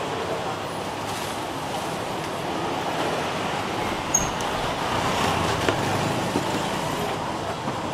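Steady street traffic noise, with a few short sharp clicks over it.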